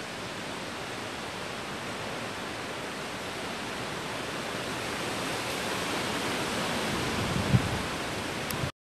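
Steady, even outdoor hiss that slowly grows a little louder, with a short low thump about seven and a half seconds in.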